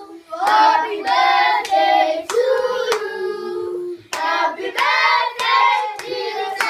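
A group of voices, children's among them, singing a birthday song together, with hand claps keeping time about every two thirds of a second.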